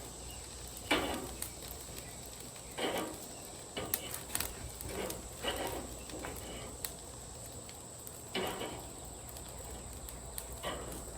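Short bursts of sizzling, about seven or eight spaced irregularly, as chicken wings are turned over one by one onto the hot grill grate, with a few light clicks in between.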